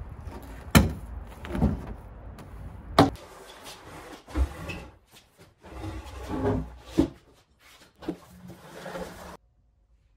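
A heavy wooden slab being handled and set onto wooden trestle bases: a series of irregular wooden knocks and thumps with scraping and shuffling between them, ending abruptly near the end.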